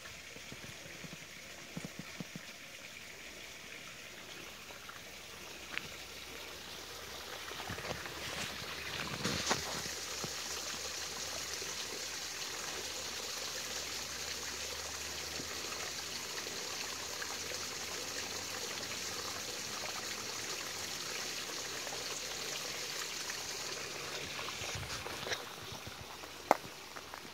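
Mountain spring water running steadily, growing louder about eight seconds in and then holding steady. A sharp knock comes near the end.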